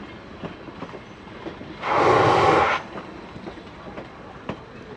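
Train wheels clicking over rail joints beneath a moving car, with a low running rumble. About two seconds in there is a loud rushing hiss that lasts about a second, then stops abruptly.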